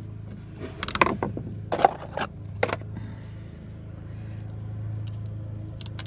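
Screwdriver backing a screw out of a Southco-type slam latch, with a few short clicks and scrapes of metal and plastic latch parts as the bell crank is worked loose. A steady low hum runs underneath.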